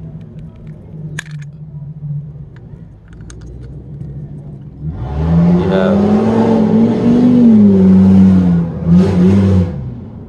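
Low steady engine hum with a few faint clicks, then about five seconds in a loud car engine revs close by, its pitch climbing and falling for about five seconds before dropping away.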